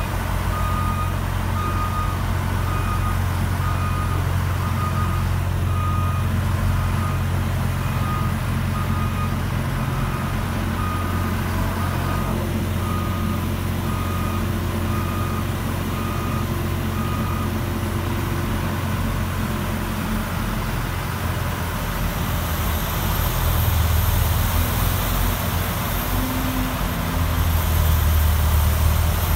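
Caterpillar wheel loader and its front-mounted Vohl VL-350 snow blower, which has its own 350 hp John Deere engine, running steadily. The loader's reverse alarm beeps about once a second and stops a little past halfway. Later a high whine comes in and the sound swells as the blower throws snow.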